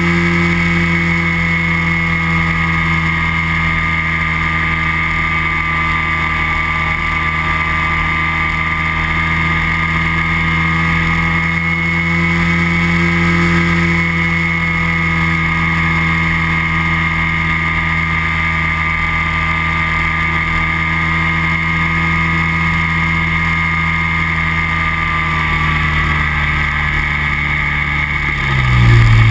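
Microlight trike engine and propeller running steadily in cruise, a constant drone. About a second before the end the note drops lower and gets louder.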